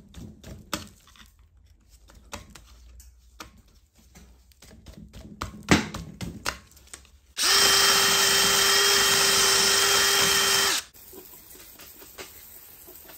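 Carbon deposits being scraped off the cast-iron cylinder head's combustion chambers and valve heads with a hand scraper: irregular scratches and clicks. About seven seconds in, a loud steady hiss of a spray jet over the head lasts about three and a half seconds, then the scraping resumes faintly.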